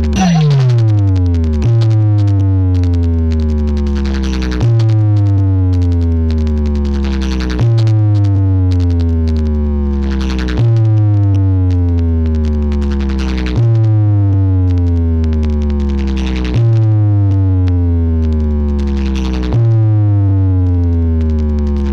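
Electronic dance music with heavy bass played through a DJ sound system: a deep sustained bass note under a falling synthesizer sweep, the phrase repeating about every three seconds.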